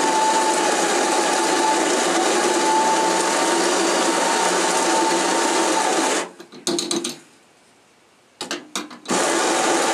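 The built-in coffee grinder of a Tutto espresso machine grinding espresso beans into the portafilter, a steady motor whir with a high whine. It stops about six seconds in, a few brief bursts and clicks follow, and it runs again from about nine seconds in.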